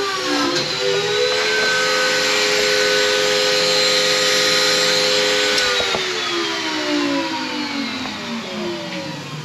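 Table saw motor and blade coming up to speed in the first second and running free. About six seconds in it is switched off with a click, and its pitch falls steadily as the blade coasts down.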